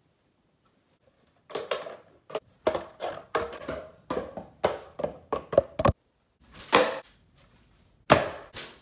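A thrown object bouncing down wooden stairs, making a run of about a dozen hard knocks that come faster and faster, then a couple of separate knocks as it carries on.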